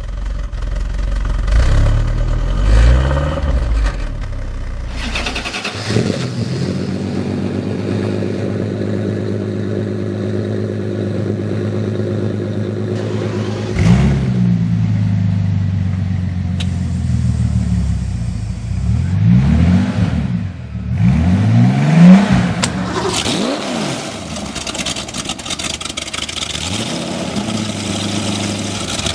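Several car engines heard one after another. First a 1957 Mercedes-Benz 190 SL's four-cylinder is revved a few times, then another engine idles steadily. From about halfway a 2013 Bentley Continental GT Speed's W12 starts, catching loudly, and is revved in quick blips.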